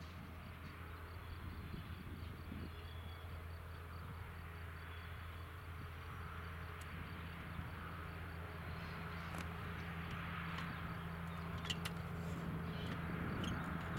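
Faint outdoor ambience: a steady low hum that slowly grows louder, with a few faint clicks near the end.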